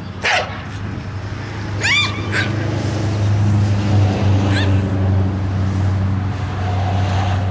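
A dog giving three short, high whines, falling in pitch, about a third of a second, two seconds and four and a half seconds in. Under them a steady low motor hum swells in the middle as a car drives past.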